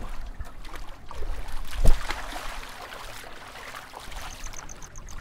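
River water splashing and lapping around a small boat, with scattered knocks, the loudest about two seconds in. A faint, fast, high ticking starts near the end.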